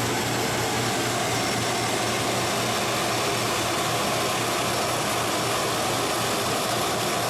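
Lathe running steadily while turning a new surface on a rusty, pitted planer table roller tube during a cutting pass: an even, unbroken machine noise with a low hum.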